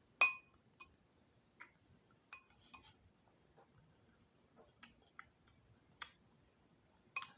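A spoon clinking against a dish while the soup is eaten: about nine light, separate clinks at irregular intervals, some with a short ring, the loudest just after the start.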